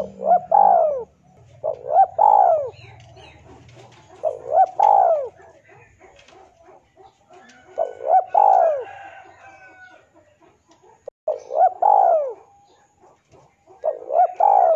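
Male spotted dove cooing: six repeated phrases, each of a few short arched coos, spaced about two to three seconds apart, the last cut short at the end. This is the male's call to a rival.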